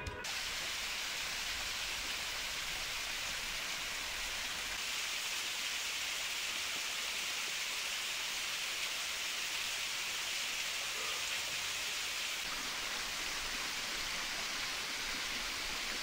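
Small waterfall splashing down a rock face: a steady, even rush of falling water.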